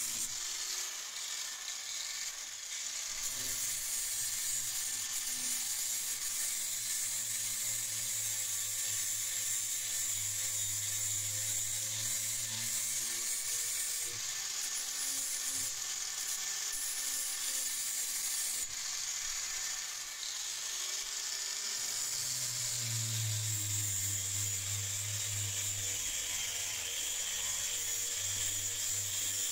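Electric angle grinder grinding the edge of a rusty steel meat cleaver blade: a steady hiss of the abrasive disc on steel over the motor's hum, which swells and dips as the pressure on the blade changes.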